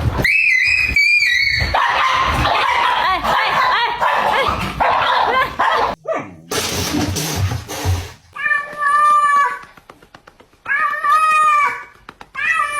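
Cats and a dog vocalising in a run of short clips: several drawn-out, wavering cat meows and dog barks, with a loud stretch of noise from a tussle in the middle.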